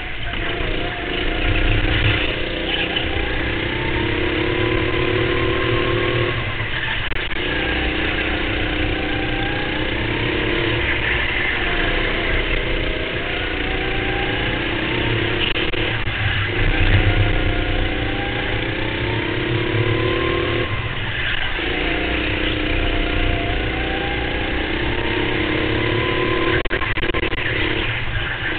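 Racing go-kart engine heard onboard, revving up through each straight with its pitch climbing for several seconds. It drops sharply as the throttle comes off for the corners, about four times.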